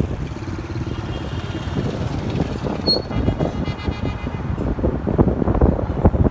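Road noise and engine rumble from a moving vehicle, with wind buffeting the microphone more strongly in the last second or so.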